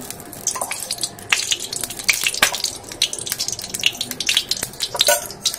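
Small irregular crackles and clicks as mustard oil is spooned into a steel kadai and spread around the pan.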